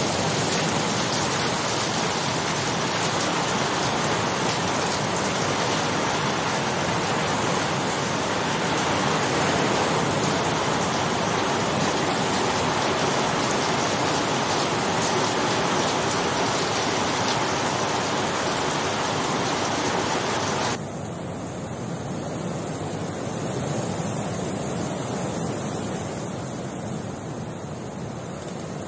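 Floodwater rushing and heavy rain falling, a steady hiss. About 21 s in it cuts abruptly to a duller, quieter rushing of a fast-flowing, swollen muddy river.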